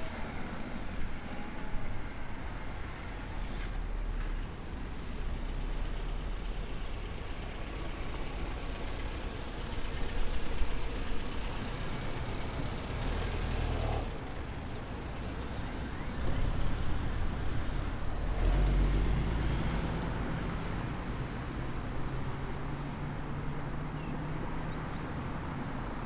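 Car engines running as cars drive slowly away, a steady low engine sound that swells louder a couple of times.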